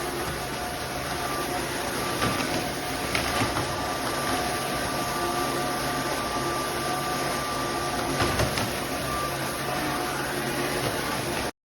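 Roborock F25 GT wet-dry vacuum mop running steadily, its motor and brush roller making a steady whir with a few faint knocks. The sound cuts off suddenly near the end.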